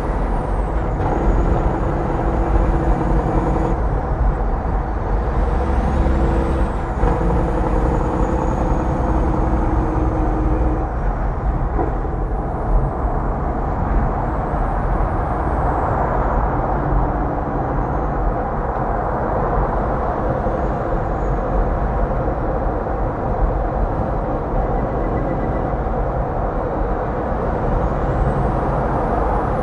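Kenworth W900 semi truck running at highway speed alongside, its diesel engine drone and tyre noise mixed with steady road and wind rumble. A droning engine tone stands out through the first ten seconds or so, then eases into the road noise.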